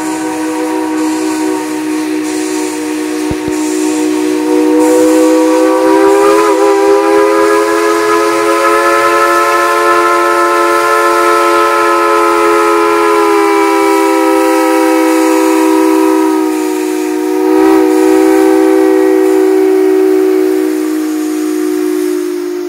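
Steam whistle of Tweetsie Railroad locomotive No. 190 blowing one long held blast over a hiss of steam. It swells and lifts slightly in pitch a few seconds in and wavers briefly near the end.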